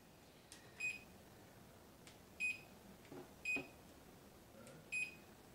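Electronic oven control panel beeping as its buttons are pressed to set the preheat temperature to 375 degrees. There are four short, identical beeps, each a second or more apart.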